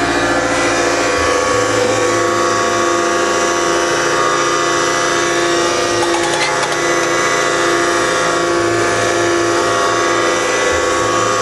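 Skid steer and hydraulic post driver running with a steady mechanical whine, with no distinct hammer blows.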